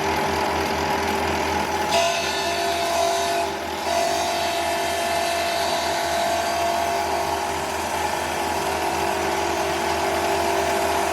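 Electric power sander running steadily with a motor hum and an abrasive grinding noise. About two seconds in, the sound shifts and a higher steady note joins, dipping briefly just before four seconds in.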